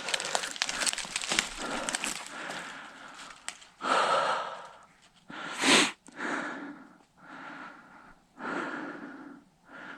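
Footsteps scuffing and crackling over the forest floor for the first few seconds, then a man's heavy breathing, about six deep breaths a second or so apart: he is winded from climbing a steep slope.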